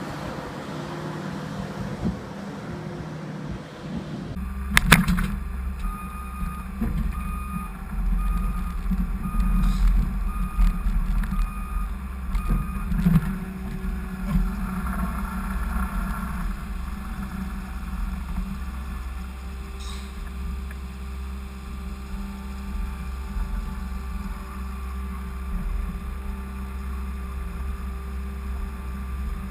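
Skid steer engine running with a deep, steady rumble. There is a sharp knock about five seconds in, and a beep repeating evenly for several seconds after.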